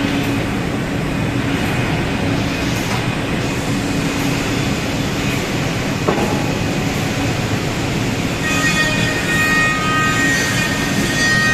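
Steady mechanical noise of a CNC panel saw in operation, with a single knock about six seconds in as plywood panels are slid on the air table. About eight and a half seconds in, several steady high-pitched whining tones join in.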